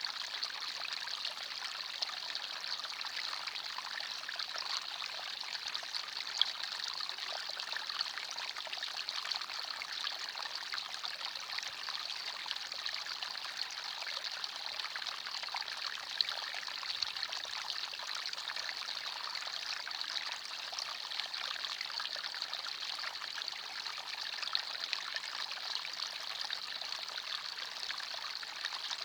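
Small forest stream trickling and burbling over stones, a steady rushing with many small splashes.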